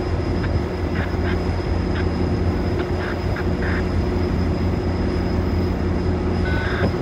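Diesel locomotive of an approaching CN intermodal freight train, its engine giving a steady low drone. A few short high chirps sound over it in the first few seconds and once near the end.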